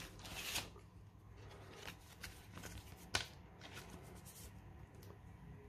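Pokémon trading cards being handled and slid into plastic card sleeves: faint papery rustling with a few sharp ticks, the clearest about three seconds in.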